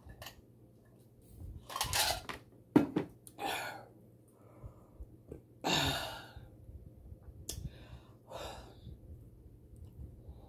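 A person drinking from a stainless steel tumbler, then several breathy exhales. A sharp clack about three seconds in is the loudest sound, the metal tumbler being set down on the table.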